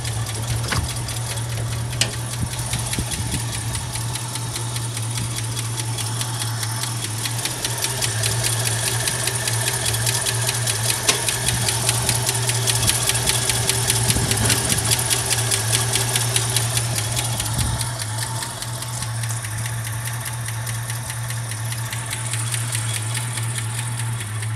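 1965 Ford Mustang's V8 engine idling, with a rapid, even knocking from under the hood that the owner says needs some adjustment. It gets louder for a while in the middle.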